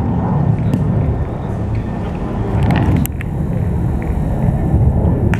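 Steel pétanque boules clacking against each other on a gravel court: a few sharp metallic clicks about three seconds in and another near the end, over a loud, steady low outdoor rumble.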